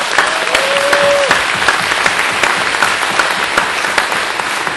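Audience applauding steadily, with one brief held call from someone in the crowd about half a second in.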